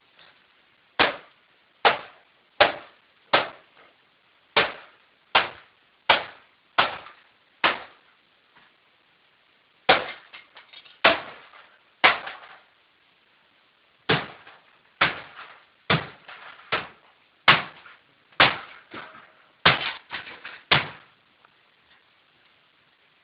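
Hammer blows striking a Canon Pixma iP4200 inkjet printer, about one a second. There are some twenty hard strikes in three runs with short pauses between them.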